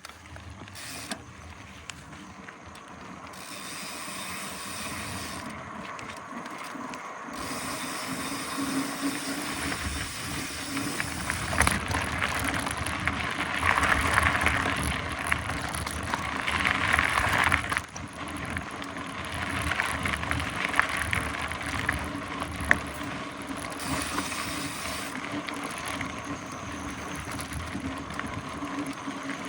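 Mountain bike being ridden: the rear hub's freewheel ratchet ticking and the tyres rolling over the trail, louder for several seconds midway.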